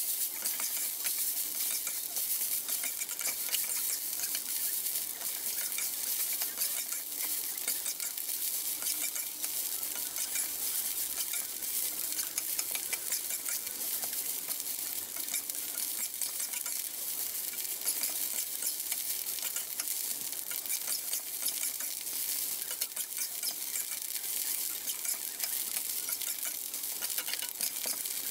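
Raw glutinous rice and Chinese sausage sizzling in a wok in the sausage's own rendered fat, with a metal spatula continually scraping, turning and tossing the grains against the pan, giving a steady hiss dotted with small scrapes and clicks.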